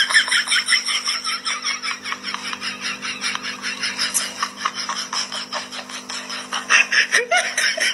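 Two puppies licking a TV screen: a quick run of wet licks, about five a second, over a steady low hum.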